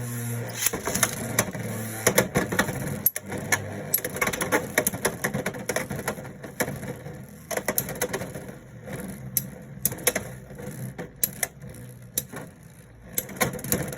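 Beyblade X spinning tops battling in a plastic stadium. A steady hum runs for the first few seconds, then rapid clicks and knocks of the tops colliding and hitting the stadium walls, growing sparser toward the end.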